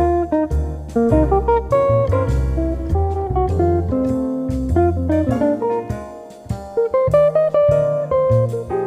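Instrumental background music: a plucked guitar melody in separate notes over a low bass line, in a light jazzy style.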